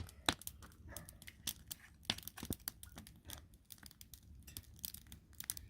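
Wood fire crackling, with many irregular sharp pops and snaps; the firewood is somewhat damp.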